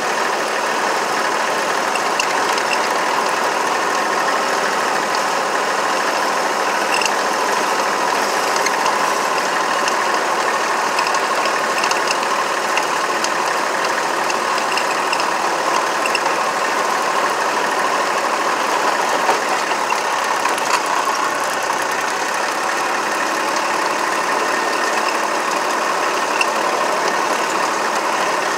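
Engine of a small work vehicle running steadily as it drives along, with a constant mechanical clatter.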